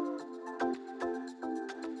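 Background music: a light electronic tune with plucked, chime-like notes over a steady beat.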